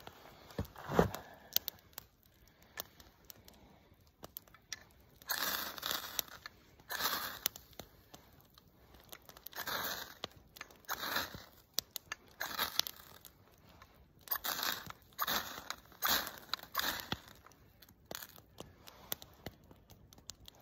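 Ferrocerium rod scraped with a knife, a soft rod: repeated short rasping strikes throwing sparks to light a fire-starter cube. There is a sharp knock about a second in.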